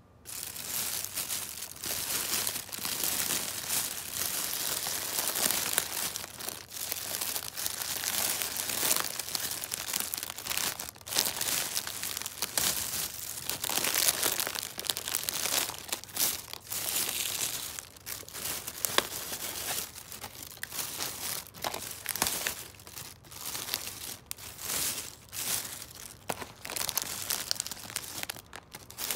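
Thin plastic shopping bag and the plastic wrappers of packaged pastries crinkling and rustling irregularly as a hand rummages through them.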